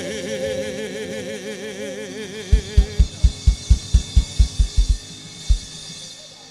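A live gospel band ends a song: the last note is held with vibrato, then the drum kit plays a fast fill of about a dozen bass drum hits and one final hit, and the cymbals ring and fade out.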